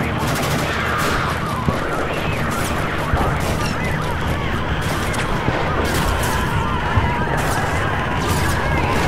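Film war soundscape: scattered gunshots and crashing impacts over a continuous low rumble.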